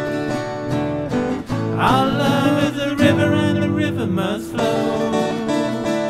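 Folk song with strummed acoustic guitar, and a voice singing a wavering phrase from about two seconds in.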